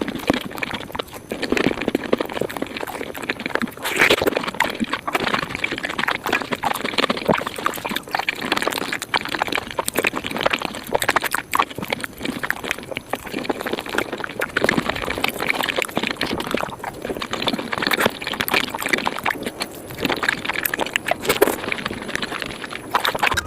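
Close-miked eating of a Japanese fruit sandwich (soft bread, whipped cream and fruit), sped up about five times, so the bites and chewing run together into a dense, rapid stream of wet clicks and squelches.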